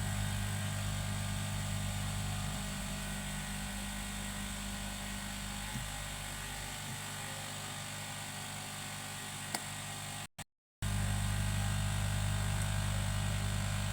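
Steady electrical hum with an even hiss, typical of a hot-air rework station's blower running while it heats the phone's charging connector for removal. The sound cuts out for about half a second a little after ten seconds in.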